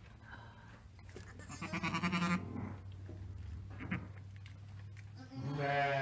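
Sheep bleating twice, each bleat quavering. The first comes about two seconds in, and the second, lower-pitched one comes near the end, over a steady low hum.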